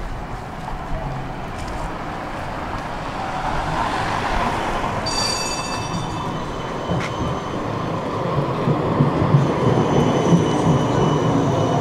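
Low-floor electric tram pulling into the stop: the rumble of wheels on rails grows louder as it comes close and runs past. A brief high ringing tone sounds about five seconds in, and in the last couple of seconds thin steady high whines come in as the tram passes alongside.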